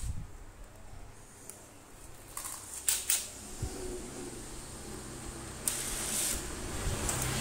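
Cordless drill-driver running steadily, backing out the screws that hold a standing fan's motor housing together. Two sharp clicks come just before it starts, and it runs louder near the end.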